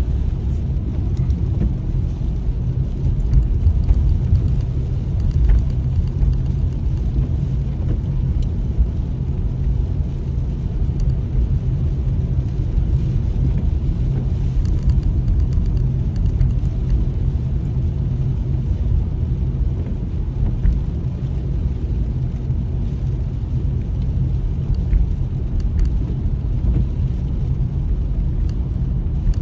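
Car driving along a wet road, heard from inside the cabin: a steady low rumble of tyres and engine.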